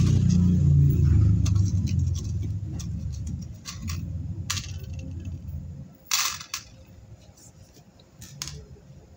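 Small sharp clicks and taps as metal bead caps, beads and a needle are handled on a plastic board while beads are threaded onto a thread, the sharpest about six seconds in. A low rumble underneath fades out over the first three seconds or so.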